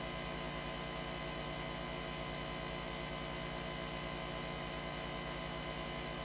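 Steady electrical mains hum with a long stack of overtones over a faint hiss, unchanging throughout.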